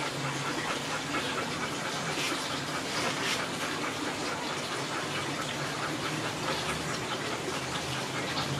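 A steady rushing noise, with faint knife strokes as a barramundi is filleted on a plastic cutting board.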